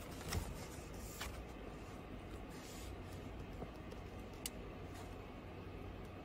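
Glossy magazine pages being turned and handled: a few short paper crackles and a soft rustle over a low steady hum.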